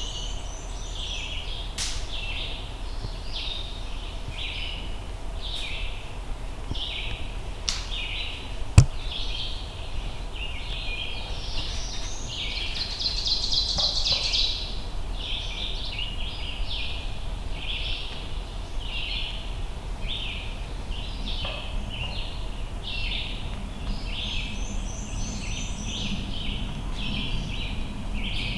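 Several songbirds singing at once, an unbroken run of short high calls with a brighter, buzzier song about halfway through. A single sharp click about nine seconds in.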